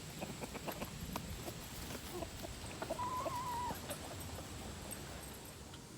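Chickens clucking, with one hen giving a single drawn-out, slightly wavering call about halfway through.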